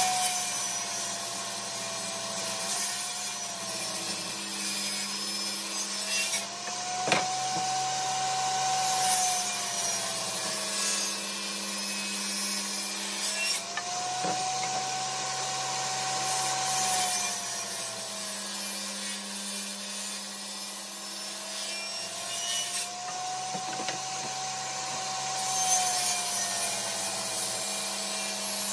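Benchtop table saw running and ripping mahogany and maple strips: the motor's pitch sags each time the blade is in the wood and climbs back between passes, several times over. A couple of sharp wooden knocks as boards are set down.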